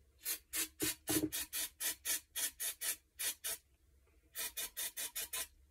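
Aerosol can of brake cleaner sprayed in short hissing bursts, about four a second, into a rifle suppressor's tube to flush it out. After a pause of almost a second, near the end, comes a second, shorter run of bursts.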